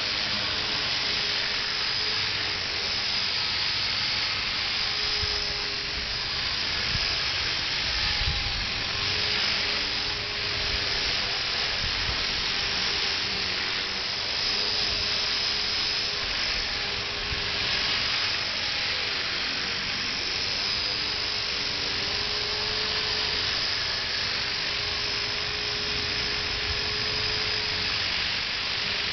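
Align T-Rex 250 electric RC helicopter in flight: the brushless motor and spinning rotors give a steady high-pitched whine whose pitch wavers slightly as it is flown, with low wind rumble on the microphone.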